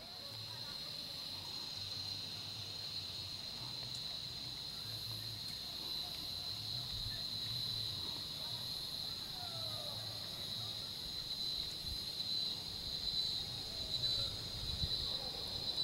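A steady, high-pitched drone from insects in the scrub, holding one pitch throughout and pulsing slightly near the end.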